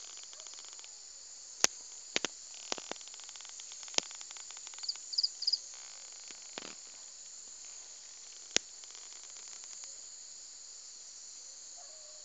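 High, steady insect chorus, with a handful of sharp clicks scattered through the first part and a brief run of high chirps about halfway through.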